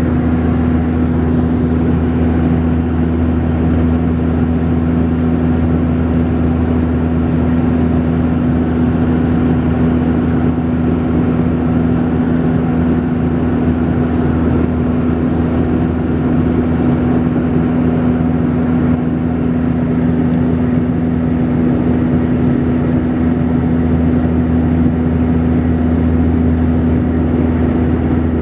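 Cabin drone of a Saab 340B in flight: its twin GE CT7-9B turboprops and propellers give a steady, loud, low hum with a strong steady tone over a rushing noise.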